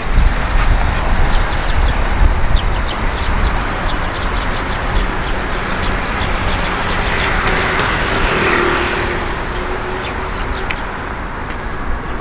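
Wind buffeting the microphone in gusts, strongest in the first few seconds, over city traffic noise; a vehicle passes about two-thirds of the way in.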